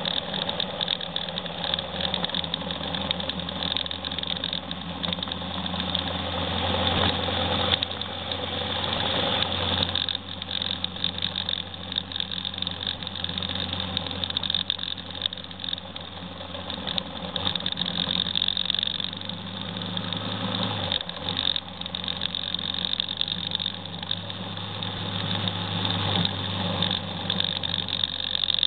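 Motorcycle engine running steadily while riding along a road, dropping briefly about two-thirds of the way through before picking up again.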